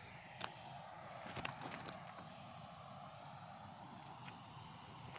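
Steady high-pitched insect drone with a few sharp clicks, the loudest about half a second in and a short cluster around a second and a half in.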